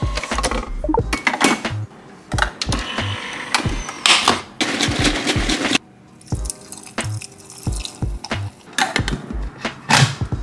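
Background music with a steady beat, over kitchen sounds: milk poured into a milk-frother jug, about four to six seconds in.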